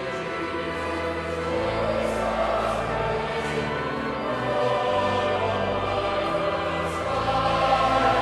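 Choir singing a hymn, with steady held bass notes underneath that change every couple of seconds.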